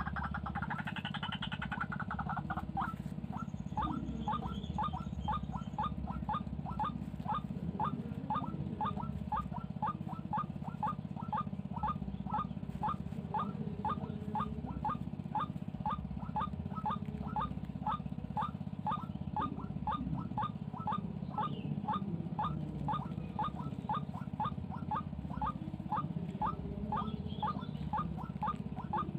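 White-breasted waterhen giving its monotonous repeated "kwak" call, short evenly spaced notes about two to three a second, after a harsher, denser call in the first two seconds or so. A steady low hum runs underneath.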